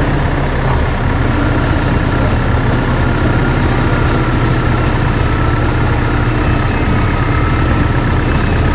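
Heavy diesel engine idling steadily with a low rumble, the engine sound laid over a toy wheel loader.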